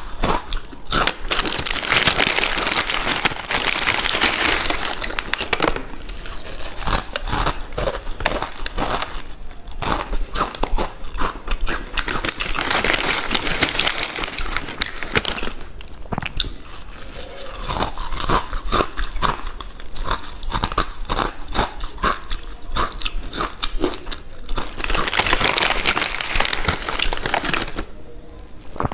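Close-miked crunching and chewing of Balaji potato chips, bite after bite, with louder stretches of dense crackling lasting a few seconds each.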